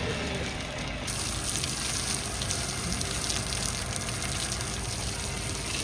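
Water splashing and pouring in a backhoe loader's bucket, a steady hiss that turns brighter about a second in.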